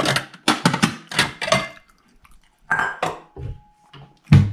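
Ceramic dishes clattering and clinking as a bowl is lifted from a stack of plates and bowls on a kitchen cabinet shelf. The clinks come in quick clusters in the first second and a half and again about three seconds in, and a heavier knock follows near the end.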